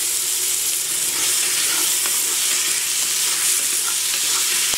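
Onions and chopped tomatoes sizzling steadily in hot oil in a pressure cooker, being sautéed and stirred with a spoon, with a few faint ticks of the spoon against the pan.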